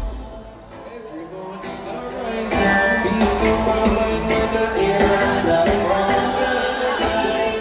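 Live reggae band playing through a concert PA, heard from within the crowd. The deep bass drops out at the start, leaving thinner, quieter music, and the full band comes back in loud, bass included, about two and a half seconds in.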